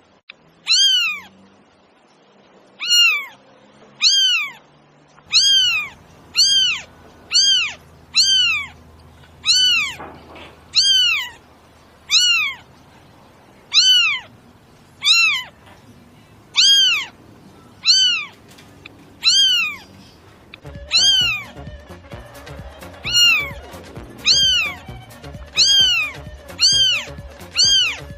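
A cat meowing over and over, about once a second, each meow the same short rising-then-falling call. Background music with a soft beat comes in a few seconds in.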